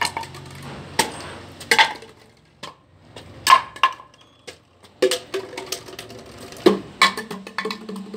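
Plastic bottles kicked one after another, each giving a sharp knock followed by a hollow clatter as it tumbles across a concrete floor.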